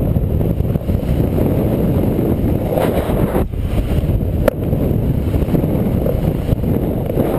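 Skateboard wheels rolling fast down a mega ramp, a steady rumble mixed with wind on the microphone. The rumble cuts out briefly about three and a half seconds in, and a sharp knock follows about a second later.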